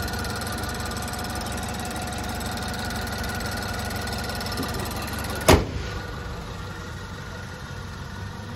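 Range Rover Evoque's 2.0-litre turbocharged four-cylinder engine idling steadily with the bonnet open. About five and a half seconds in comes a single loud bang as the bonnet is shut, after which the idle is quieter and muffled.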